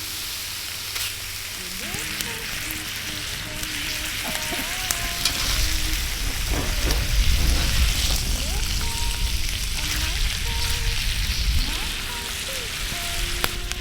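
Wood fire in a slotted log stove burning, with steady crackling and hissing and sharp pops, louder in the middle. Soft background music plays underneath.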